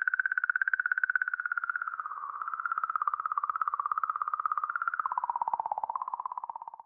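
Sonified 'song' of comet 67P/Churyumov-Gerasimenko, its magnetic-field oscillations sped up into hearing: a rapidly pulsing, warbling electronic tone at about a dozen pulses a second. The pitch dips lower about two seconds in and again about five seconds in, then fades out at the end.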